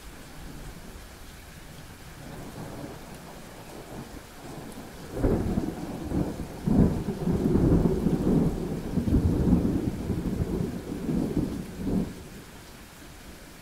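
Thunder rolling: a deep rumble starts about five seconds in, swells in several peaks for about seven seconds and then fades out.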